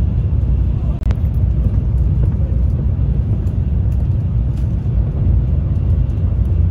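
Train cabin noise: a steady low rumble of the carriage running along the track, with a brief dropout about a second in.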